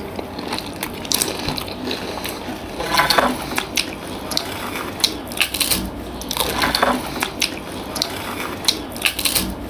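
Close-miked chewing of soft, syrup-soaked rasgulla and pantua sweets: a steady stream of wet mouth clicks and smacks.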